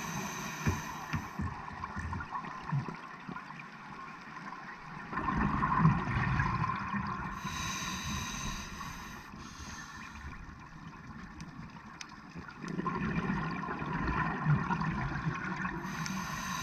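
Scuba diver breathing through a demand regulator underwater: a hissing inhale at the start, in the middle and at the end, with gurgling bursts of exhaled bubbles in between, in a slow cycle of about eight seconds.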